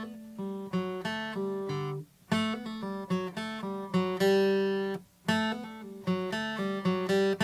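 Acoustic guitar playing a riff over a G chord: a chord is struck, then single notes are hammered on and pulled off before the chord is caught again. The phrase is played three times with short breaks between.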